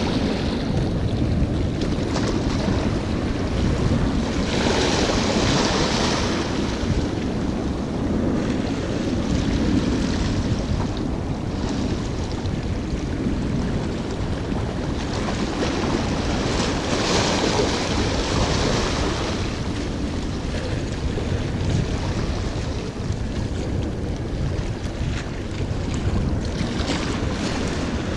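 Wind buffeting the microphone over waves washing against jetty rocks. The wash swells up about five seconds in and again about seventeen seconds in.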